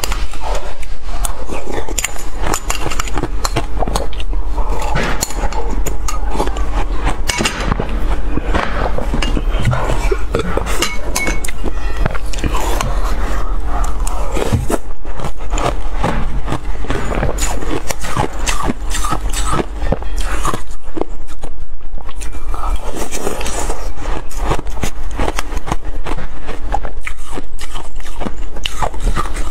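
Close-miked crunching and chewing of mouthfuls of crushed ice, in many quick irregular crunches. A metal spoon scrapes and clinks against a glass bowl as it scoops the ice.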